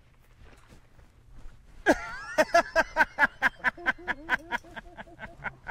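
A person's sudden yelp about two seconds in, followed by a long run of excited laughter, steady short "ha"s at about six a second.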